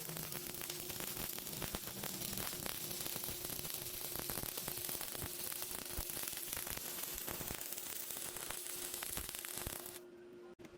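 Electric arc welding: a steady crackling, sizzling hiss that cuts off suddenly near the end.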